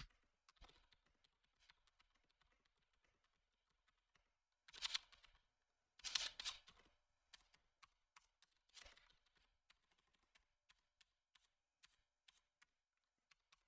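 Faint computer keyboard typing: irregular, soft key clicks, with a few louder short bursts of keystrokes about five, six and nine seconds in.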